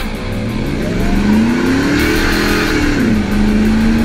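Ford F-150 SVT Lightning pickup's V8 accelerating, heard close to its side-exit exhaust tip. The pitch climbs, drops once at an upshift about three seconds in, then holds and creeps up again.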